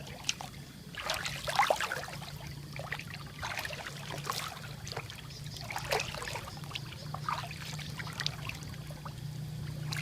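Water splashing and trickling in irregular bursts, with a steady low hum underneath.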